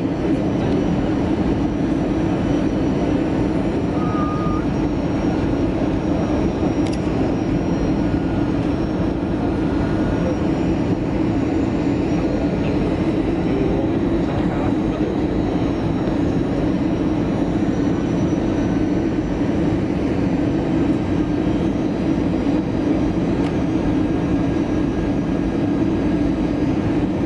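Steady cabin noise inside an Airbus A320 on final approach: a constant rush of engine and airflow noise with a low drone.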